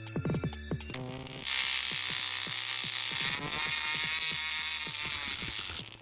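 Music for about the first second, then a small motor-driven machine running with a loud buzzing hiss and a whine that wavers up and down in pitch, cutting off just before the end.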